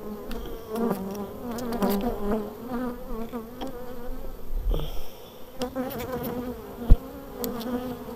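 Swarm of honeybees buzzing over an open hive, a steady wavering hum. A sharp knock comes about seven seconds in.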